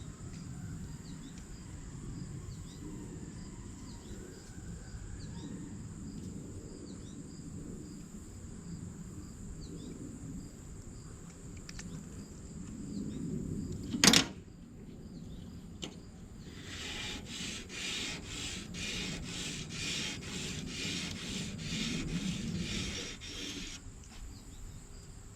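A broadhead blade clamped in a sharpening guide is rubbed back and forth across coarse 400-grit sandpaper on a plexiglass plate: a fast, even run of gritty strokes, about three a second, through much of the second half. About halfway through comes a single sharp knock, the loudest sound.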